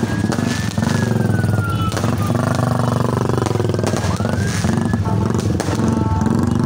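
New Year fireworks going off: sharp bangs about once a second, a whistle falling away in the first two seconds and another rising about four seconds in. Under them runs the steady hum of traffic engines, motorcycles and cars.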